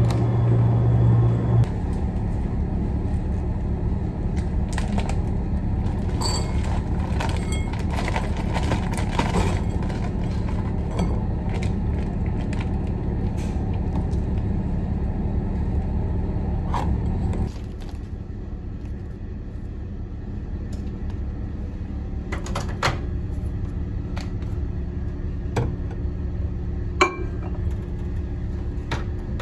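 Steady low rumble and hum of a ship's machinery in the galley, dropping a little in level past the halfway point. Scattered clicks and rustles from handling food packets and a bowl sit on top of it.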